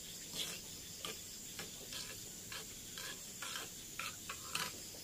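Spoon stirring coconut-milk powder into water in a small cup: a run of short scraping clinks, about two a second.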